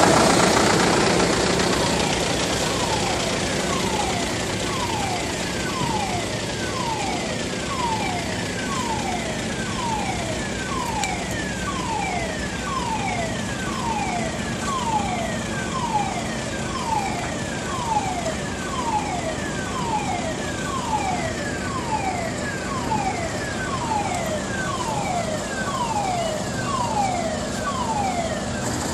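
A heavy-equipment warning alarm repeating a short falling tone about three times every two seconds, starting about two seconds in, over a steady idling diesel engine.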